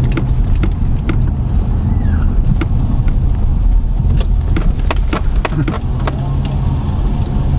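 Steady road and engine rumble heard from inside a moving car's cabin, with scattered sharp clicks and knocks, thickest about four to six seconds in.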